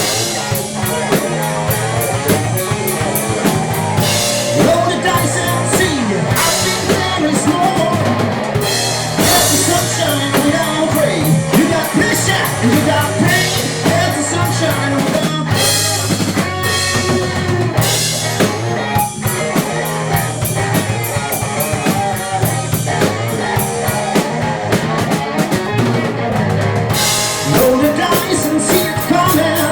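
Live rock band playing: electric guitars, bass guitar and a drum kit, with cymbal crashes every few seconds over a steady bass line.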